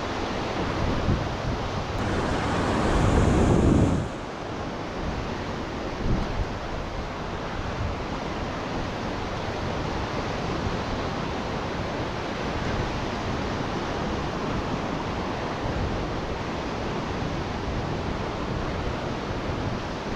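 Ocean surf washing on the beach with wind buffeting the microphone; about two seconds in, a louder rush of noise builds and then stops abruptly.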